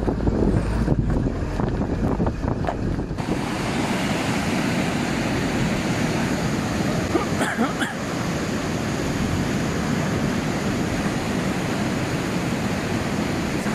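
A vehicle's low rumble heard from inside the cab, cutting off about three seconds in to a steady rush of flowing stream water at a muddy crossing.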